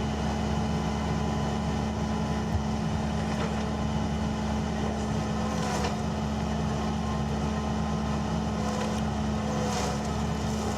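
Engine of a tracked demolition machine running steadily, with a few faint knocks.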